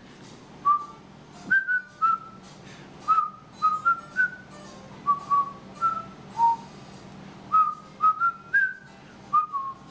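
A person whistling a string of short notes, about one or two a second, stepping a little up and down in pitch.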